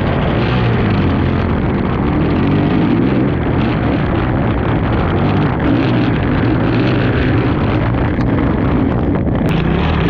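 Race ATV engine running hard, its pitch rising and falling as the throttle is worked, with wind rushing over the microphone.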